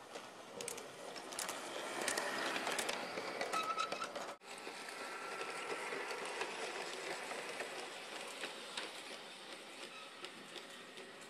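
G-scale LGB model trains running on the track, a steady rolling rattle of wheels and motor with many sharp clicks over the rail joints in the first few seconds. The sound breaks off abruptly about four seconds in and resumes as a smoother run of coaches rolling past.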